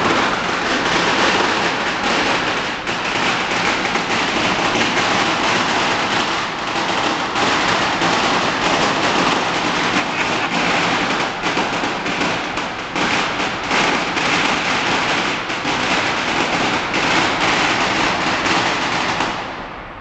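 A long string of firecrackers going off in a rapid, unbroken crackle for about nineteen seconds, stopping just before the end.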